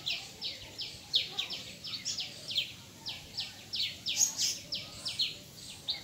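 High chirping calls: rapid runs of short chirps, each dropping in pitch, several a second, with brief gaps between the runs.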